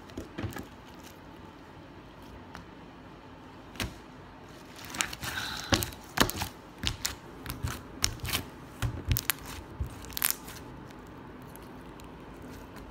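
Glitter slime being poked, squished and stretched by hand, giving a scattering of sharp little clicks and pops, thickest in the middle stretch.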